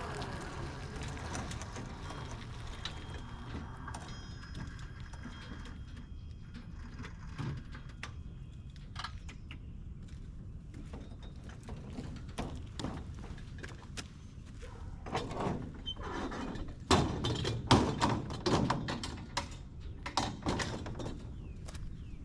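Toro Revolution Grandstand battery-powered stand-on mower running with a low, steady hum. In the last several seconds there is an irregular run of knocks and clunks.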